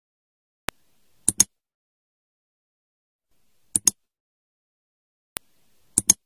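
Mouse-click sound effects over dead silence: three quick double clicks, about two and a half seconds apart. A fainter single click comes before the first and the last.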